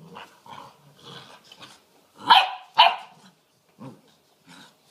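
English mastiff puppies play-fighting, with softer scattered vocal noises, then two loud, sharp puppy barks about half a second apart a little past halfway, and a couple of smaller sounds near the end.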